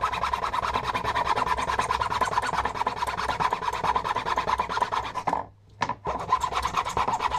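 Hand sawing into a wooden board with a small frame saw in quick, short back-and-forth strokes. The sawing stops briefly about five seconds in, then starts again.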